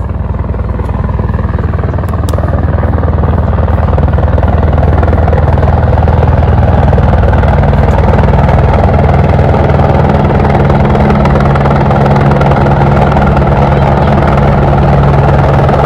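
Medical helicopter coming in to land, its rotor and turbine running with a steady rapid beat that grows louder over the first few seconds and then holds.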